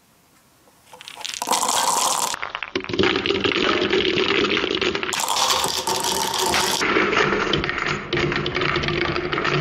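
A handful of marble-run balls poured into a cut-off PET bottle funnel, rattling and rolling round the plastic and dropping on through plastic and wooden track in a dense, continuous clatter that starts about a second in.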